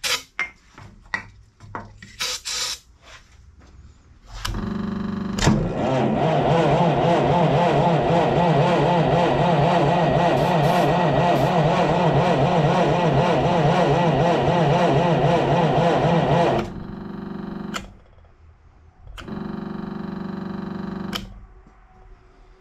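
A Hercules ZXB four-cylinder flathead engine being cranked by its electric starter: a steady, pulsing churn for about twelve seconds, then a second short crank of about two seconds near the end. A few clicks and knocks of handling come before the first crank.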